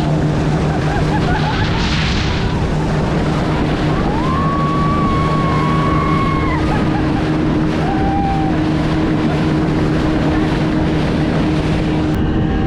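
Boat outboard motor running steadily at speed, with rushing water and wind on the microphone. Around the middle a higher whine rises and holds for about two seconds, and a shorter one follows.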